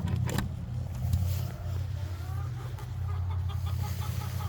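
Chickens clucking in short repeated notes, several a second and more steady in the second half, over a low steady rumble.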